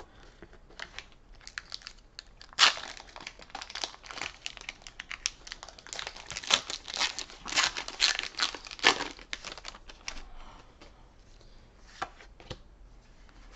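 A Pokémon Sword & Shield booster pack's foil wrapper crinkling and being torn open: a dense run of sharp crackles from about two to nine seconds in, then a few light clicks.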